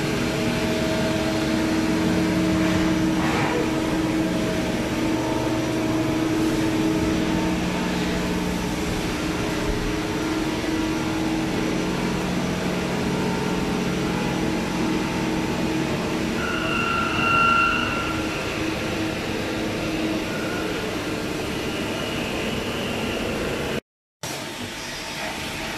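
Quaser HX-504BE/12B CNC horizontal machining center running with a steady mechanical hum. A brief higher-pitched whine comes about two-thirds of the way through, and another near the end.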